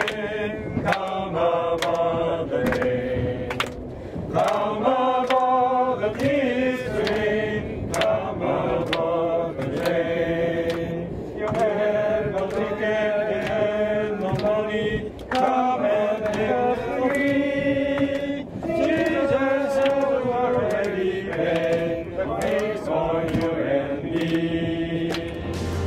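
A group of people singing a slow hymn together, with frequent sharp clicks behind the voices.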